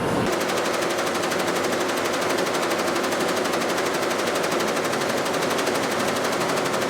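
Embroidery machine stitching: a rapid, even mechanical clatter of many strokes a second that cuts in abruptly at the start and runs steadily.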